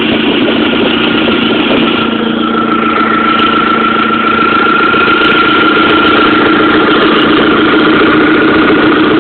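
Audi 1.8T turbocharged four-cylinder engine idling steadily and loudly, recorded to capture an exhaust leak that the owner takes to be at the exhaust manifold. A thin high whine comes in about two and a half seconds in and holds.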